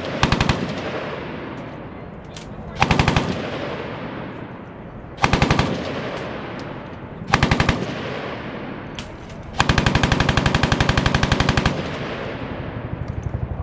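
Machine-gun fire in short bursts of rapid, evenly spaced shots, then one longer burst of about two seconds about ten seconds in, with a faint string of shots near the end.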